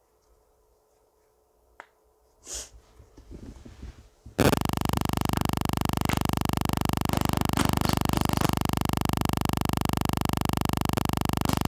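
A few clicks and pops, like the bubbles of a silicone pop-it fidget toy being pressed, then a loud steady buzz that starts suddenly and runs on.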